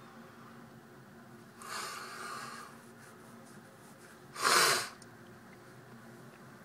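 Breath sounds from a person close to the microphone: a softer rushing breath about two seconds in, then one short, loud, sharp burst of breath about four and a half seconds in.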